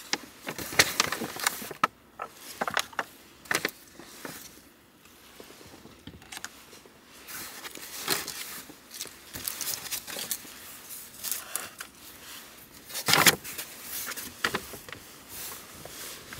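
Paper carrier bag and plastic takeout food containers rustling and crinkling as they are handled and set down, in irregular short crackles with a louder one about two-thirds through.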